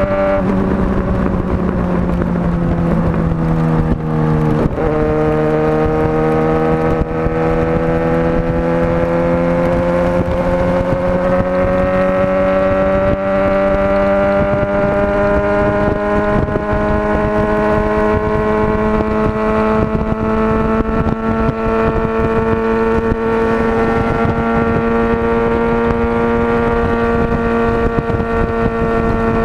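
Motorcycle engine running under way, with a steady rushing noise beneath it. Its note sinks over the first few seconds and changes abruptly about five seconds in, as at a gear change. It then climbs slowly and evenly for the rest of the time as the bike gathers speed.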